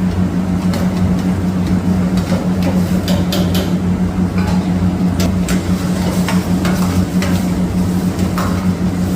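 A metal utensil stirring and clinking against a cooking pan, with sharp knocks every so often, over a steady low hum.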